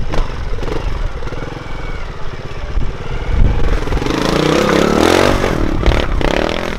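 Trials motorcycle engine running at low revs, then revved harder and louder from about four seconds in, its pitch rising and falling.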